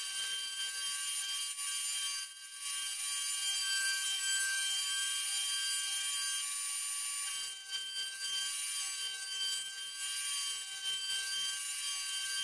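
Bridgeport CNC milling machine's end mill cutting a round hole in a magnesium plate: a steady high-pitched machine whine, with a lower cutting tone that comes and goes as the cutter works around the bore.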